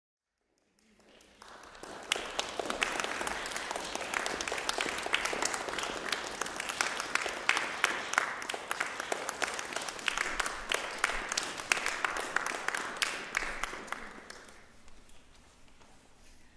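Audience applauding. The clapping starts about a second in and fades out near the end.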